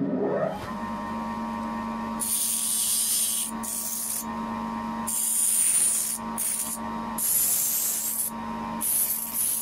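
Bench grinder switched on and spinning up at the start, then running with a steady hum. A small steel plate held in pliers is pressed to the wheel in about six short passes, each a hiss of grinding, taking the rough edges off the plate.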